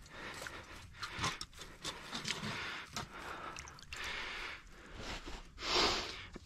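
Hands splashing and sloshing in shallow pond water and rustling through dry reeds and sticks at the bank, in irregular bursts with small snaps and clicks, loudest near the end.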